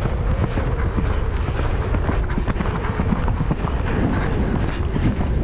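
Horse galloping, its hoofbeats pounding in a quick run of thuds, under a heavy low rumble of wind on the helmet-camera microphone.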